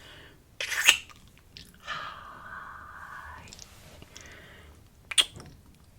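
Close-miked human yawning. A loud mouth sound comes just before a second in, then a drawn-out voiced yawn of about a second and a half trails into a breathy exhale, and a sharp mouth click comes near the end.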